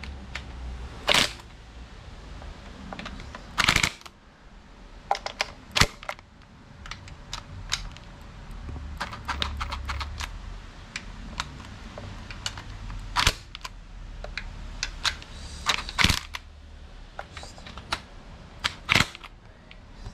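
Hand ratchet clicking in short, irregular runs, with a few louder sharp clicks, as the bolts of a plastic timing cover are snugged down.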